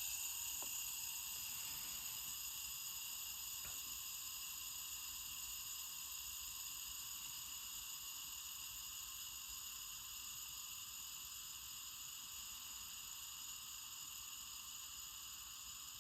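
Fidget spinner's ball bearing spinning freely after a flick, a steady high-pitched whir of several tones that slowly fades as it loses speed.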